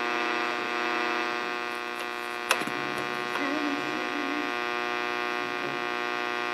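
1968-69 Ford AM push-button car radio (Philco 8TP0) putting out a steady electrical hum through its speaker, with no broadcast coming through. A single sharp click comes about two and a half seconds in.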